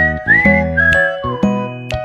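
Background music: a bright tune with a whistled melody that glides between notes, over bass notes and light percussive ticks.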